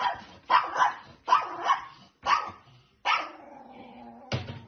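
Small dog barking in four short, sharp barks, then giving one longer held note about three seconds in. A sudden knock comes near the end.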